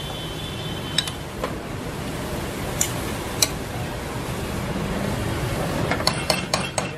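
Grated carrots and onion frying in ghee in an aluminium pan with a steady sizzle, while a metal spoon stirs them: a few sharp clicks of the spoon against the pan, then a quick run of scraping clicks near the end.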